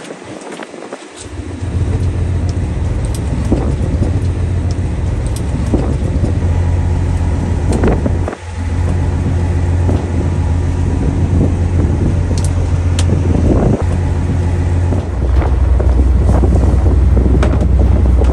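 Fishing boat's engine running steadily at sea, a low hum under wind and water noise, with scattered knocks. It grows louder for the last few seconds.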